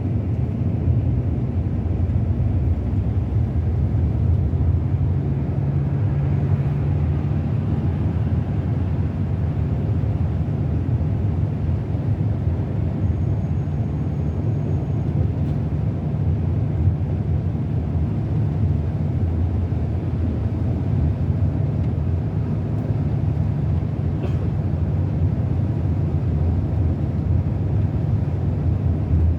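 Scania K360 bus engine running steadily on the road, a continuous low drone mixed with road noise.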